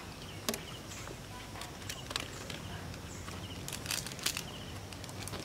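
Outdoor ambience: a low steady rumble with scattered sharp clicks and taps, bunched a little before the end, and faint high chirping.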